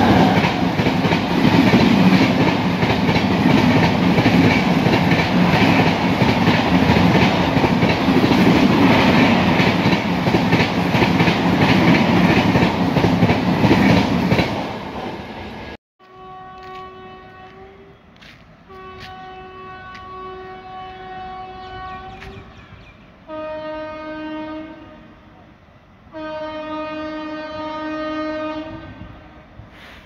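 Express passenger train passing at high speed: a loud, steady rush of coaches with wheels clattering over rail joints for about 15 s, ending abruptly. Then a train horn sounds four long blasts, fainter, the last two slightly lower in pitch.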